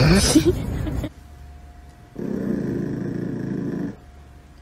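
Small Chihuahua-type dog growling: one long, low, rough growl lasting under two seconds, starting about two seconds in.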